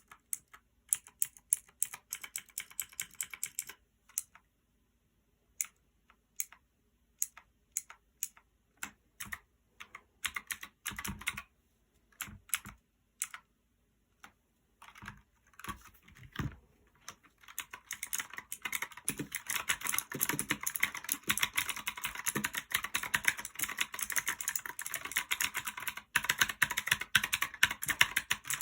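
Otemu blue clicky mechanical switches on a One Up G300 keyboard being pressed. Scattered single keystrokes and short runs give way, a little past halfway, to fast continuous typing.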